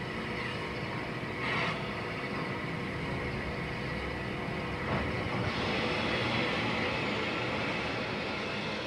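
Steady rumble and hiss of locomotives standing in the station, a Bulleid steam Pacific and a Class 45 diesel, with a brief louder rush about one and a half seconds in.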